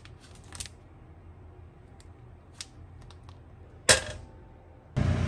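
Plastic snack wrapper crinkling in short bursts as a pastry is pulled out of it, then one sharp clack just before four seconds in. A steady loud rushing noise starts abruptly near the end.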